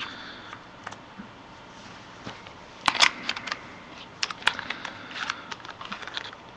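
Small plastic clicks and taps of a Kodak Zi8 pocket camcorder's battery and battery cover being handled and fitted, with two sharp clicks about three seconds in followed by a run of lighter clicks.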